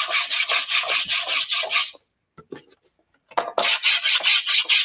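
Hand sanding block scrubbed quickly back and forth over collage paper and dried acrylic paint on a painting panel, distressing the surface: a fast, scratchy rasp of about six strokes a second. It stops about two seconds in, leaving a few light scrapes, and starts again about a second and a half later.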